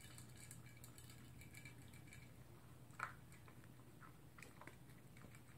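Toy poodle eating from a plastic food bowl: faint scattered clicks and crunches of food against the bowl, with one sharper click about three seconds in.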